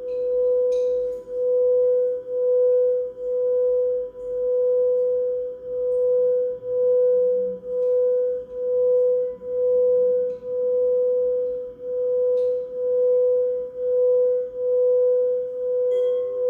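Singing bowl sounding one steady tone with a faint higher overtone, its loudness swelling and fading about once every three-quarters of a second. A second, lower bowl tone joins near the end.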